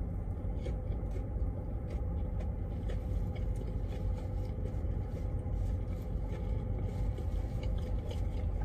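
Steady low rumble and hum of a semi truck idling, heard from inside the cab, with faint clicks of chewing on a sandwich.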